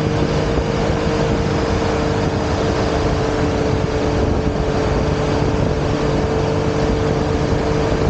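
Steady rush of wind over the microphone with a steady engine drone from a Yamaha Tracer 9 GT's three-cylinder engine cruising at about 70 mph.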